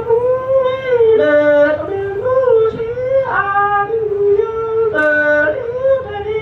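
A man singing Hmong khawv txhiaj (kwv txhiaj, sung poetry) solo into a hand-held microphone. He uses a high voice with long held notes that waver and slide between phrases.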